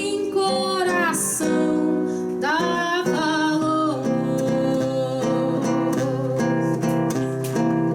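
Live acoustic song: a singer holds drawn-out, sliding notes over acoustic guitar for the first few seconds, then the acoustic guitar strums on alone in a steady rhythm.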